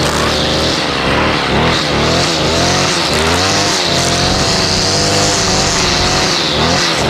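Stihl FS55R string trimmer's 27.2cc two-stroke engine running hard, its pitch rising and falling repeatedly as the throttle is worked, steadier for a few seconds in the middle.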